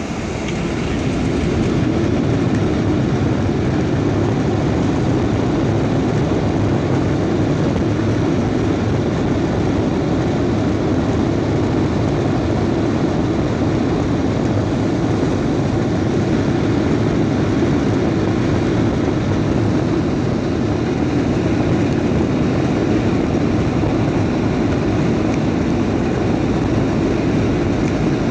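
A Boeing 737-900's CFM56 jet engines, heard from inside the cabin, spooling up to takeoff thrust over the first couple of seconds. They then run steadily at full power with a low rumble from the takeoff roll down the runway.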